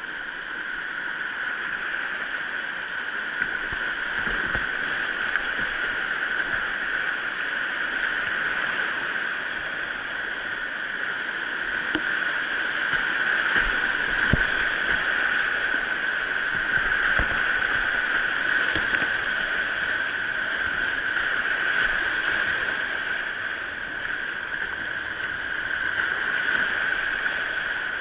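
Steady rushing of a mountain stream over rapids, an even wash of water noise, with a few soft low knocks about halfway through.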